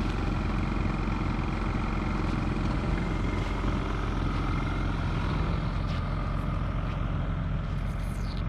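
An engine idling steadily with an even low rumble.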